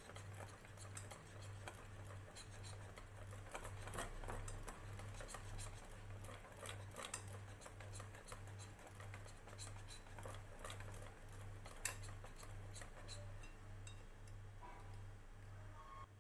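Wire whisk beating gram-flour batter in a glass bowl: quick, continuous clicking and ticking of the wires against the glass. The clicking thins out over the last couple of seconds.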